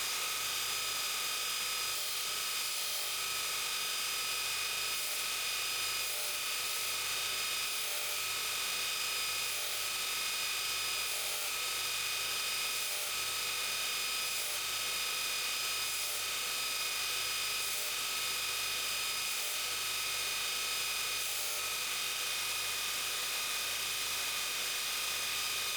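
Electric sanding wheel running at steady speed, giving a constant high whine over a grinding hiss as the top end of a workpiece is squared up against it.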